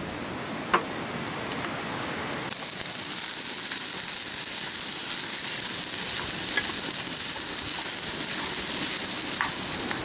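Fried rice sizzling in a frying pan on a portable gas stove while a wooden spatula stirs it. The sizzle starts suddenly about two and a half seconds in, after a quieter stretch with a single sharp click.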